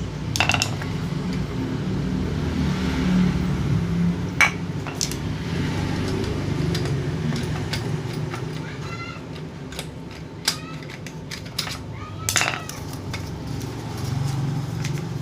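A few sharp metallic clinks and knocks from the metal parts of an electric fan being taken apart, over a steady low hum. The fan's shaft is rusted and seized.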